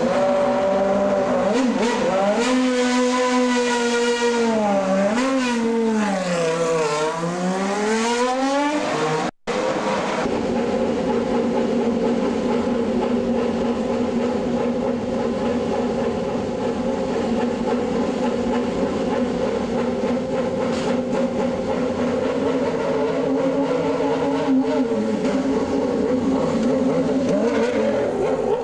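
Formula One V10 engine being revved, its pitch dipping and climbing twice, then after a short dropout an engine running at a steady note for about fifteen seconds. Near the end the note dips and rises again as the car moves off down the pit lane.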